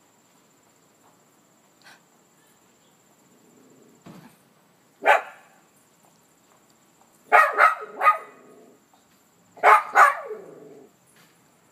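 Small Maltese dog barking: a single sharp bark about five seconds in, then quick runs of two or three barks. These are the excited barks of a dog that has recognised his owner approaching.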